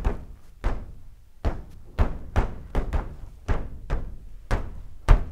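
Background music with a steady percussive beat, about two to three knocking hits a second over a deep thump.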